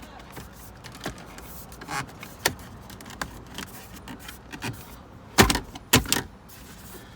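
Plastic center-console side trim panels of a 2022 Toyota 4Runner being handled and pressed into place, giving scattered light clicks and rattles as their clips are lined up. There are two louder knocks about a second apart near the end.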